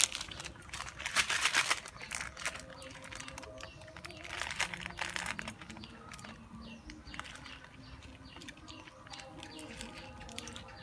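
A cat eating noodles: a run of small wet clicks and smacks from its chewing, with louder noisy bursts about a second in and again around four to five seconds.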